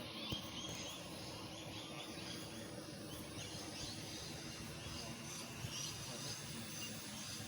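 Steady background noise with small birds chirping over and over, and a single brief knock shortly after it starts.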